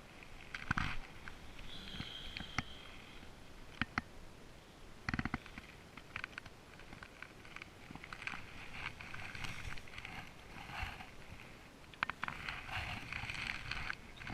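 Irregular water splashing and sloshing, broken by scattered sharp clicks and knocks. There is a brief high steady tone about two seconds in.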